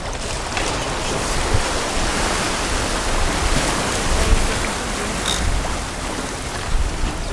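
Steady rush of wind and small waves washing against a rocky shoreline, with wind buffeting the microphone in a low, uneven rumble.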